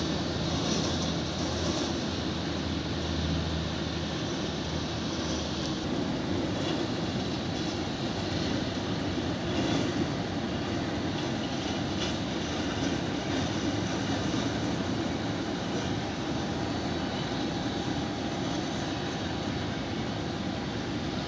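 Steady jet engine noise from an airliner, an even roar. A low hum underneath fades out about four seconds in.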